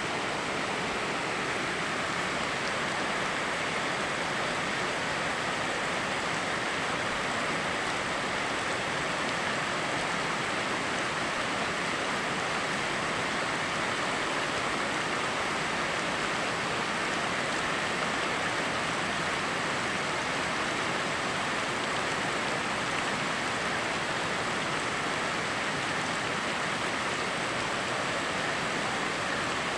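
Rain falling together with a flowing river, an even, unbroken rush of water noise.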